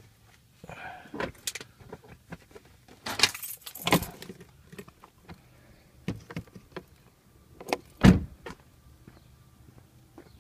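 Handling noise: rustling, clicks and clatter as a hand-held phone is moved about, with one loud knock about eight seconds in.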